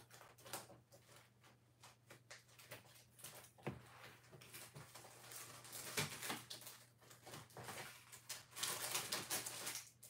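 Small clicks, taps and rustling of hands rummaging through craft supplies for circle dies, with a longer rustle near the end, over a faint steady low hum.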